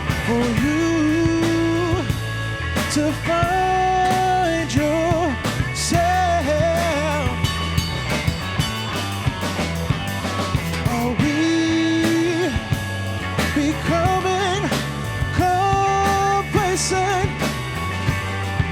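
Live progressive-rock/fusion band playing: drum kit, bass and electric guitar, with a melodic lead line that bends and slides in pitch over a steady low end and regular drum hits.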